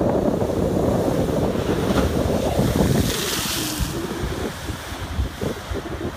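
Storm waves crashing and washing against a lakeshore, with heavy wind buffeting the microphone. A loud low rumble of wind and surf fills the first three seconds, then a hissing wash of water comes about three seconds in, and the sound then eases off.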